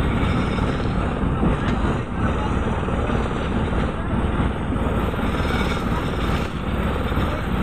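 A fishing boat's engine runs steadily with a rapid, even pulsing.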